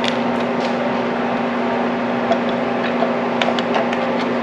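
Scattered light metallic clicks and ticks of a hex tool and bolt being worked loose on a metal light bracket, over a steady mechanical hum.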